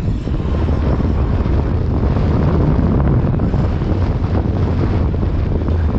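Boat motor running steadily, with wind noise on the microphone.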